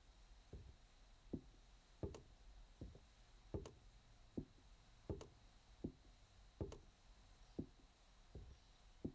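Faint, slow footsteps of bare feet on a wooden floor, one foot bandaged, about one step every three-quarters of a second, some steps landing a little heavier than others.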